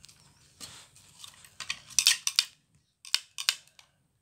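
Hard plastic toy pieces clacking and knocking together: a quick run of sharp clacks about two seconds in, then two more near the end.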